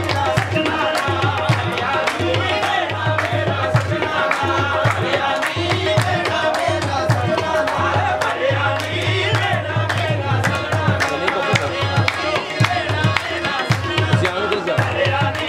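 Qawwali music: singing voices over a steady harmonium drone and a driving tabla rhythm, playing on without a break.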